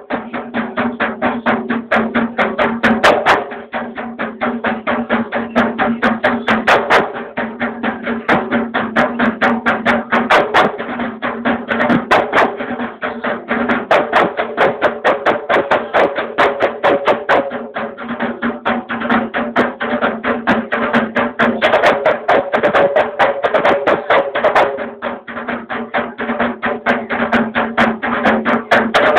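Kompang ensemble playing: many Malay hand-struck frame drums beaten together in a fast, dense interlocking rhythm that runs without a break.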